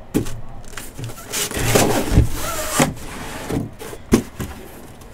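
Cardboard card hobby boxes being slid out of a shipping case and set down on a table: scraping and rustling, with several knocks and a dull thump.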